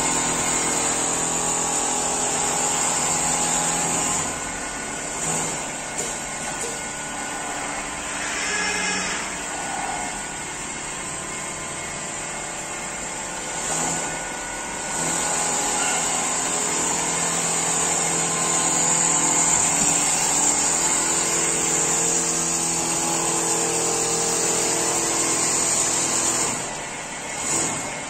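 Richpeace single-head quilting machine running, its needle head stitching through the quilt as the carriage moves. It makes a steady mechanical whir with a high hiss, dropping in level for a while about four seconds in and briefly near the end.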